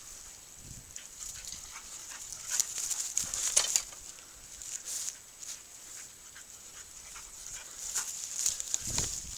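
Dog sounds: short scratchy rustles and clicks, bunched about three seconds in and again near the end.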